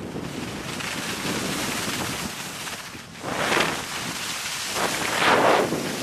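Wind buffeting a handheld camera's microphone while skiing downhill, a steady rushing noise. Two louder rushes come about three and a half and five and a half seconds in.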